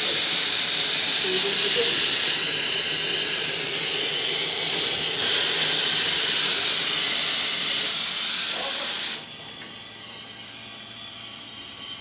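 Steam wands of a Sanremo Zoe espresso machine blowing steam wide open with a loud hiss. The hiss eases about two and a half seconds in, comes back full about five seconds in, and cuts off sharply about nine seconds in, leaving a faint hiss.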